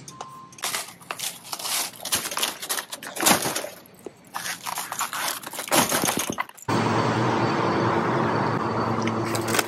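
Shrink-wrapped cases of plastic water bottles crinkling, crackling and knocking as they are heaved into a wire shopping cart, in an irregular run of crackles and thuds. About two-thirds of the way in it cuts abruptly to a steady hum with faint steady tones.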